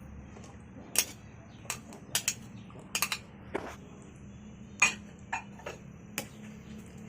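A metal utensil clinking and knocking against a cooking pot in about a dozen irregular sharp strikes, over a low steady hum, as the just-added potatoes are stirred into the chicken afritada.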